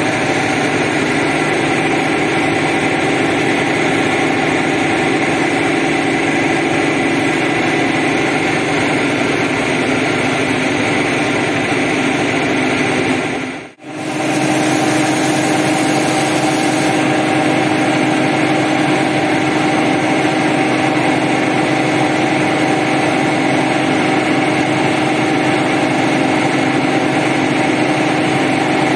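Pressure washer's motor and pump running steadily: a constant hum with a few steady tones. It drops out for an instant about halfway through and resumes unchanged.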